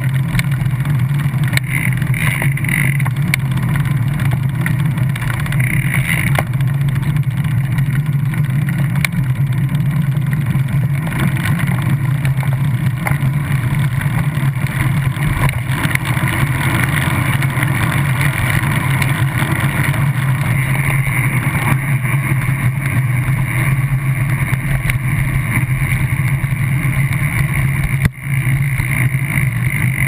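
Steady road traffic noise with a continuous low engine hum, heard from a moving bicycle ride; the sound drops out briefly near the end.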